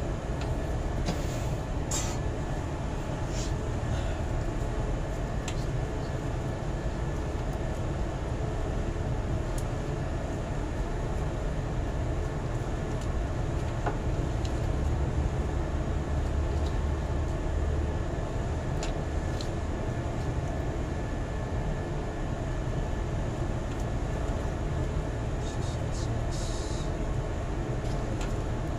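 Steady low mechanical rumble, like machinery running, with a few light clicks and taps of pliers at the wiring scattered through it.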